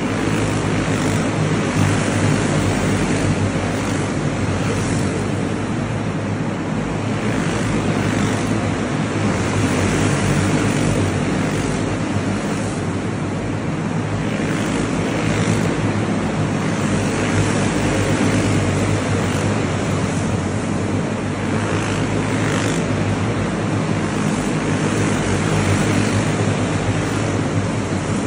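Several clone-engine racing karts (small single-cylinder four-stroke engines) running laps together on an indoor concrete track in a large hall. The engine noise is a steady, dense din that swells and fades slightly as karts pass.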